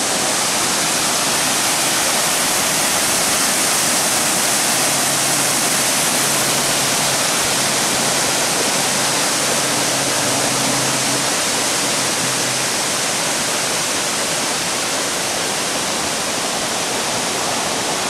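Multnomah Falls and its creek below: a loud, steady rush of falling and running water.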